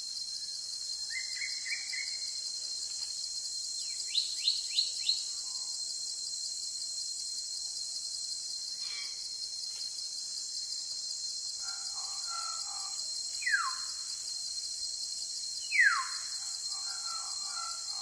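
A steady, high insect drone with wild birds calling over it. There is a short trill about a second in, then four quick, sharp notes around four seconds. Two loud whistles fall steeply in pitch near the end, with softer chattering calls around them.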